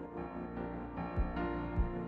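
Background music: sustained keyboard chords with a couple of low drum hits.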